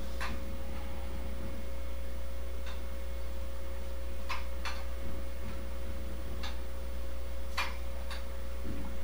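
Steady low hum with a faint steady high tone over it, and a handful of light clicks at irregular intervals of one to two seconds.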